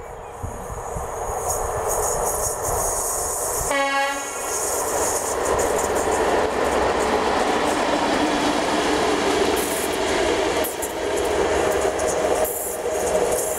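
A class 753 diesel locomotive, running coupled to a class 181 electric as a light-engine movement, gives one short horn blast about four seconds in. Its engine and wheel noise then grow steadily louder as the pair approaches.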